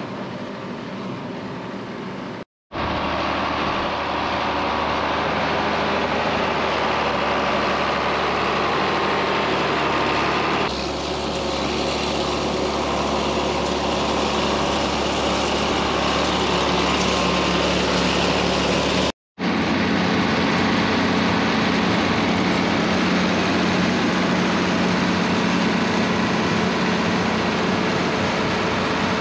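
John Deere 4630 tractor's six-cylinder diesel engine running steadily, heard across several clips cut together. The sound drops out for an instant about two and a half seconds in and again about two-thirds of the way through, and changes character at each cut.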